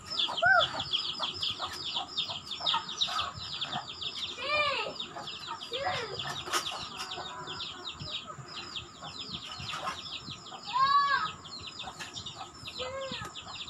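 Chickens clucking in a yard, with a few louder calls that rise and fall in pitch, the loudest about eleven seconds in, over a steady stream of rapid high chirps.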